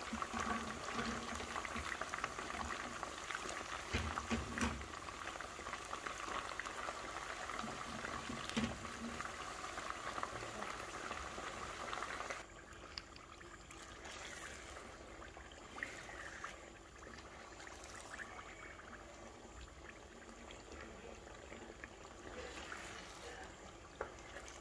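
Wet green chili paste frying in hot coconut oil, a dense sizzling crackle as the water in it cooks off. It drops abruptly to a quieter sizzle about halfway through.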